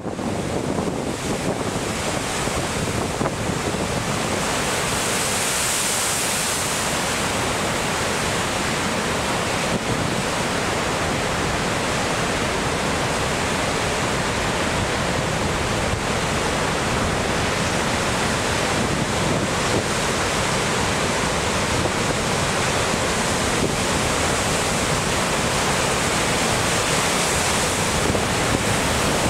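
Heavy storm surf breaking against a rocky shore, a steady, unbroken rush of crashing waves with wind noise on the microphone.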